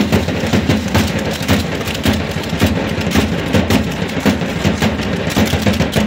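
Matachines dance music: a drum beats a rapid steady rhythm while the dancers shake their gourd rattles in time.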